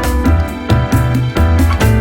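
Background music: an upbeat instrumental tune with a keyboard melody, a bouncing bass line and a steady beat.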